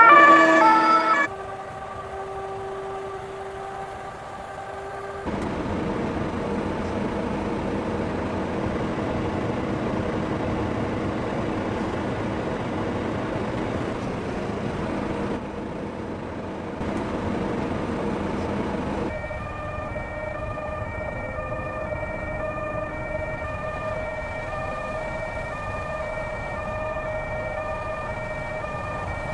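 Fire engine's two-tone siren, alternating between a high and a low note, with steady road and engine noise from passing vehicles. It opens with a loud rising note, and the back-and-forth two-note pattern is clearest in the last ten seconds.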